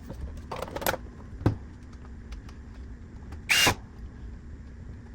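Small clicks and knocks from hard plastic and metal parts being handled on a workbench, over a steady low hum. About three and a half seconds in comes one louder short scraping rasp.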